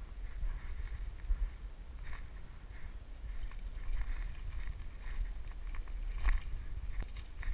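Low rumbling wind and handling noise on a body-worn camera's microphone as the player moves, with faint rustling and one sharper knock about six seconds in.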